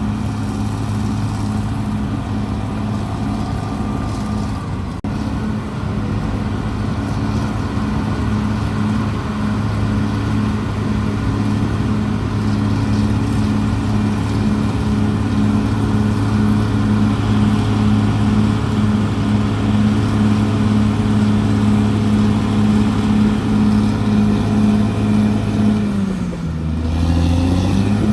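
Diesel engine of a CAT D6R XL crawler bulldozer running steadily under work, a deep even hum with a regular pulse. Near the end the engine pitch sags briefly and climbs back up.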